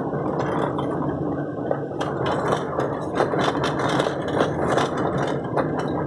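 Car driving slowly over a rutted dirt road, heard from inside the cabin: a steady engine hum and tyre noise, with many small rattles and clicks as the car jolts over the bumps.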